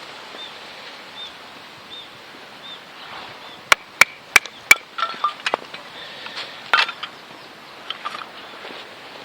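A KA-BAR BK2 knife being batoned through firewood: four sharp wooden knocks about a third of a second apart, a few seconds in, followed by lighter knocks and cracks as the soft wood splits easily.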